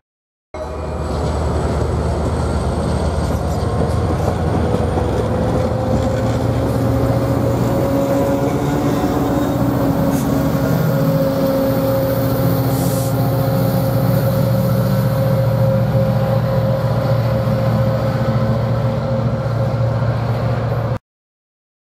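Amtrak Piedmont passenger train pulling out and passing close by: the coaches roll over the rails with a dense steady noise over a steady diesel hum. The sound starts after a brief silent gap and cuts off abruptly about a second before the end.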